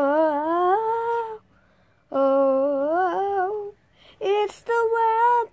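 A boy's voice singing wordless, drawn-out notes that waver and slide upward in pitch: two long notes, then two shorter ones near the end.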